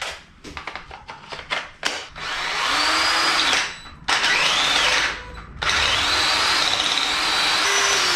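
Cordless drill with a 10 mm bit opening up a slightly misaligned bolt hole through steel angle and frame plate. It runs in three bursts with a high whine, the middle one rising and falling in pitch. A run of short clicks comes first.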